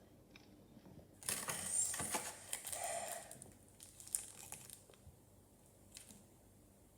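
Packaging crinkling and rustling as it is handled for about two seconds, followed by a couple of light clicks.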